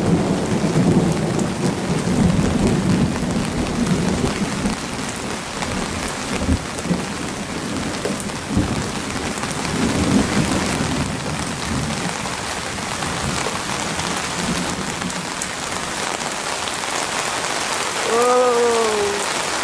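Heavy rain pouring steadily, with a long low rumble of thunder through the first half that dies away. A short tone that rises and falls sounds near the end.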